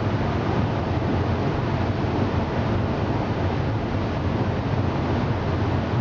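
A colliery's underground train running along its track, a steady rumble heard from inside its metal carriage.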